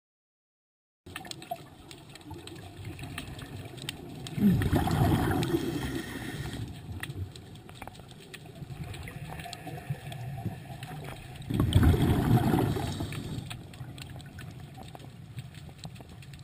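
Underwater scuba exhaust bubbles from a diver's regulator, bubbling out in two bursts of about two seconds each, roughly seven seconds apart, over a low steady hiss. The sound starts about a second in, after silence.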